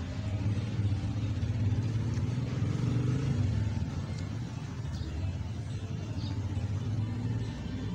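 Steady low engine-like rumble, a little louder between about one and three and a half seconds in.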